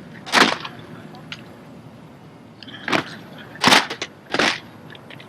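Drill rifles handled in drill movements: four sharp slapping cracks of hands striking the rifles, one about half a second in and three more close together near the end.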